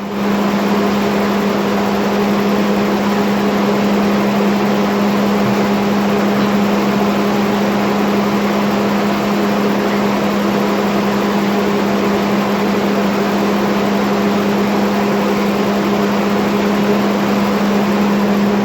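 Electric motor of a two-post car lift's hydraulic power unit, humming steadily and evenly, then cutting off abruptly.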